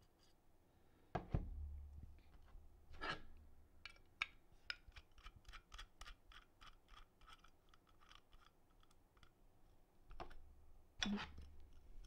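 Small screwdriver backing the screws out of a numpad's metal case: a faint, even run of light clicks, about four or five a second, with a few louder knocks as the case is handled.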